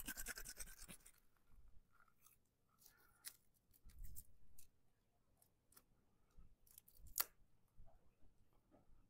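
Garlic clove rolled inside a tube garlic peeler between the palms: faint rubbing with scattered small crackles and clicks of the garlic skin, one sharper click about seven seconds in.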